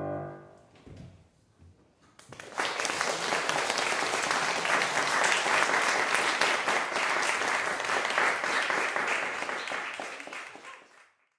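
The last chord of a grand piano dies away, then after about two seconds of near quiet an audience starts applauding, steady clapping that fades out near the end.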